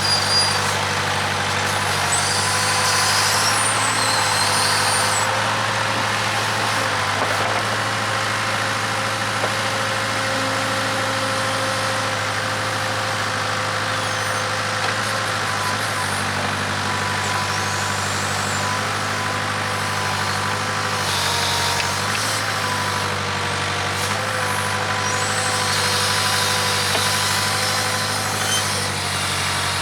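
Case 580K backhoe's diesel engine running steadily under load, with a hydraulic whine that wavers slightly in pitch as the hoe works. Brief high squeals come through a few seconds in and again near the end.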